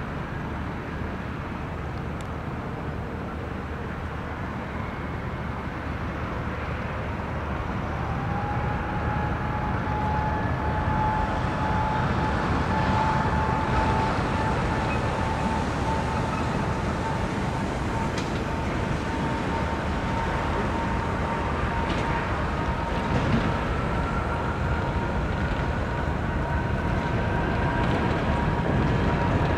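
Airbus A380's jet engines: a steady rumble growing gradually louder. About a quarter of the way in, a whine comes in and edges slowly up in pitch.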